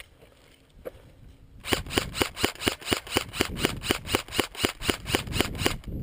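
Airsoft gun firing a steady string of about eighteen rapid shots, some four to five a second, after a single click shortly before.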